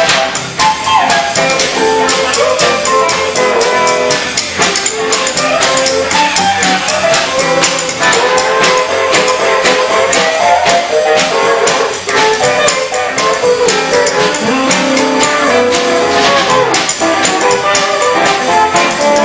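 Live band music from upright bass, acoustic and electric guitars and drum kit, with a steady driving beat and a shifting melody line.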